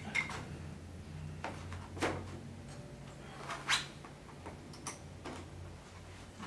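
A few light, separate knocks and clicks of bamboo cart parts being handled and fitted together, the loudest about three and a half seconds in, over a low steady hum.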